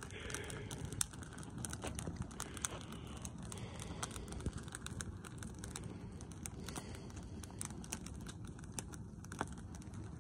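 Christmas tree burning in an open bonfire: irregular crackles and pops from the burning branches over a steady low rumble.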